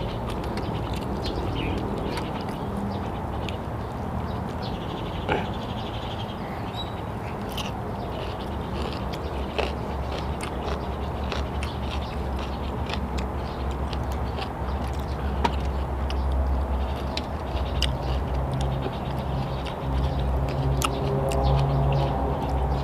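Close-up chewing and lip-smacking of someone eating grilled chicken with his hands, a run of many short, wet clicks over a steady low hum.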